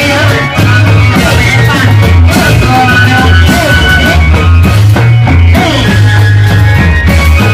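Loud amplified music for a Reog Bleknong masked dance troupe, with a heavy, steady bass beat under a sliding, wavering melody line.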